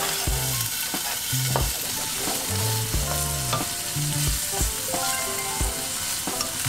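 Bacon strips sizzling in a hot nonstick frying pan, with a spatula stirring them and tapping and scraping the pan now and then.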